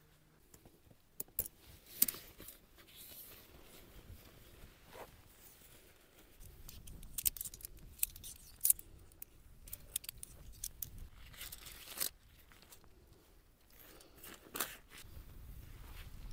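Tent being taken down by hand: quiet rustling and scraping of tent fabric, poles and pegs, broken by scattered sharp clicks. A low rumble joins in about six seconds in.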